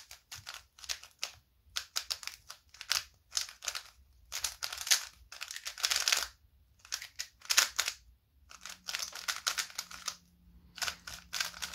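Plastic layers of a new magnetic Cosmic WuWei 3x3 speedcube clicking and clacking as it is turned in bursts of rapid moves with brief pauses between them. The cube is freshly factory-lubed and still loosening up, getting faster as it is turned.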